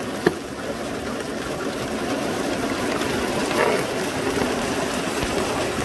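Heavy rain pouring down, a steady hiss, with one sharp click shortly after the start.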